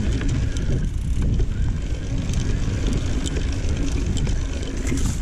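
Mountain bike rolling down a dirt singletrack: a steady rumble of the tyres on the dirt mixed with wind on the microphone, with scattered clicks and rattles from the bike.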